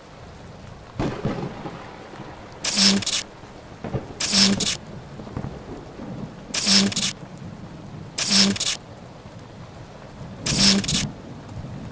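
A steady rain-like hiss broken by five short, loud crashes spaced a second and a half to two and a half seconds apart.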